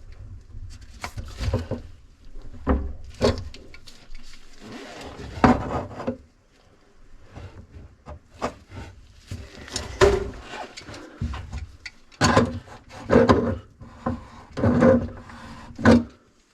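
Irregular rubbing, scraping and knocking as sink drain parts (strainer and brass tailpiece) are handled and fitted under a kitchen sink. The sounds stop abruptly near the end.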